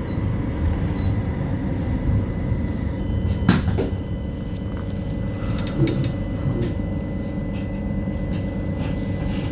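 West Midlands Metro tram running between stops, heard from inside the passenger saloon: a steady low rumble from the wheels on the rails, with faint steady tones over it. A sharp knock or clatter comes about three and a half seconds in, and a smaller one a couple of seconds later.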